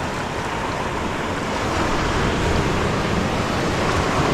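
Sea surf washing steadily against the shore, with wind on the microphone.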